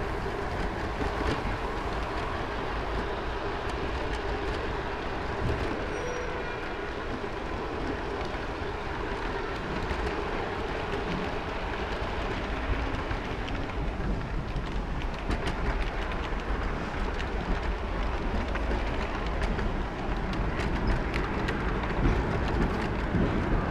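Garden-scale model locomotive running along its track, heard from on board: a steady running noise with a faint motor whine, and the wheels clicking over rail joints, the clicks coming more often in the second half.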